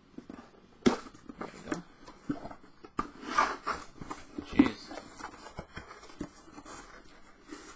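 Cardboard shipping box being handled and opened: cardboard scraping and rustling, with a few sharp knocks, the loudest about halfway through.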